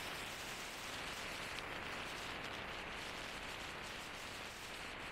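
Steady rushing hiss of wind and tyre noise from a car driving along a paved road, picked up by a phone held at the open window.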